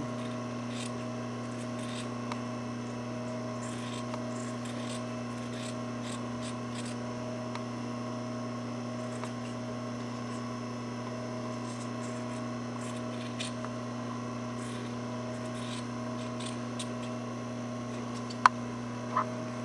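Scissors snipping through fabric in faint, irregular cuts as the seam allowances of a doll dress and its lining are trimmed and the corners clipped, over a steady low hum. One sharper click near the end.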